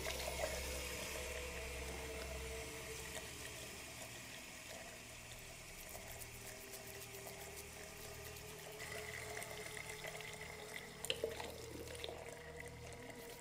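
Chrome bathroom tap turned on and running in a steady stream into a basin. A few sharp clicks come about eleven seconds in.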